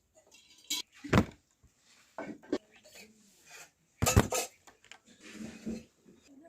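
Dishes and utensils clattering in a series of sharp knocks, the loudest about a second in and again about four seconds in, with an indistinct voice murmuring near the end.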